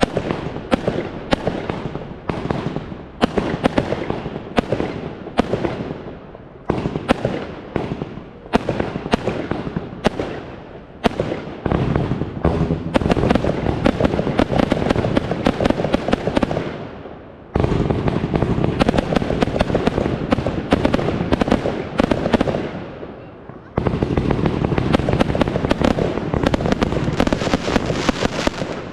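Consumer firework cake ('Insane') firing a rapid barrage: separate bangs several times a second at first. From about twelve seconds in, it turns into three long runs of dense crackling, each starting and stopping abruptly.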